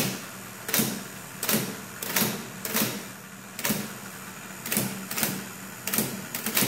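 1940s IBM Electromatic electric typewriter typing one key at a time: about a dozen separate typebar strikes against the platen, roughly one a second or faster, over the steady hum of its running motor. The keys are being tested one by one, and the strikes print pretty light.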